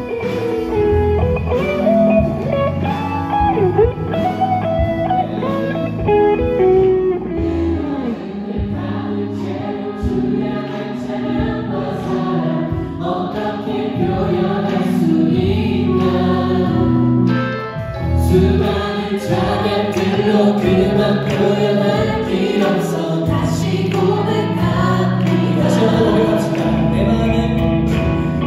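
Contemporary worship band playing a song, with electric guitar, drums and keyboards, while a group of singers sings in Korean.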